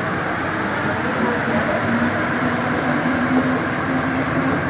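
Santiago Metro NS16 train pulling out of a station: the traction motors whine over the steady rail running noise, and the whine rises about a second in and then holds steady.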